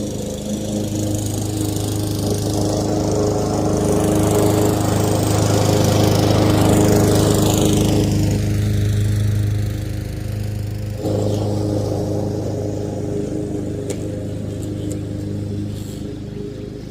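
Gasoline lawn mower engine running steadily while cutting grass, growing louder as it comes closer, loudest about two-thirds of the way through, then easing off as it moves away.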